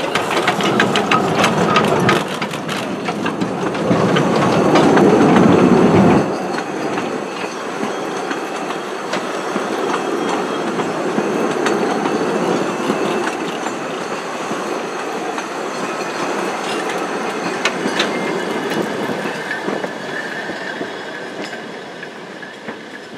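Narrow-gauge steam locomotive pulling a train away at close range: sharp exhaust beats at first, then loud hissing steam from the cylinders peaking about four to six seconds in. The coaches then rumble and clickety-clack past and fade away, with a thin, steady high squeal from the wheels in the last few seconds.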